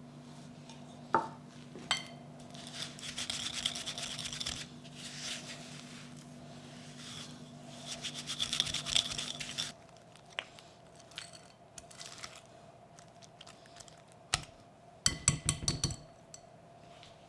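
Wire balloon whisk beating cream cheese and sugar in a glass bowl: rapid scraping strokes with the wires ticking against the glass, loudest in the first ten seconds and softer after. Near the end comes a quick run of sharp clicks and taps.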